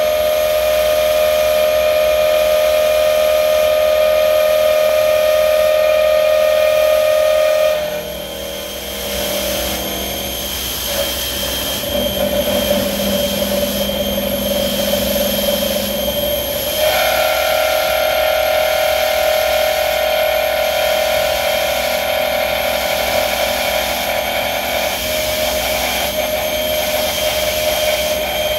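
CNC drill line spindle driving an end mill around a circular cut in steel plate: a steady machine whine made of several steady tones. About 8 seconds in it drops and roughens, and about 17 seconds in it returns at a slightly different pitch.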